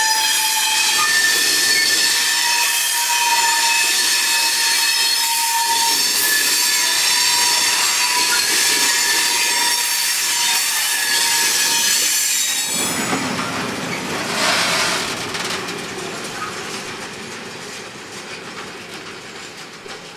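Loaded cement tank wagons of a freight train rolling past, their wheels squealing in several steady high tones over the rolling noise. About two-thirds through, the squeal stops abruptly and the rumble of the train fades as it moves away.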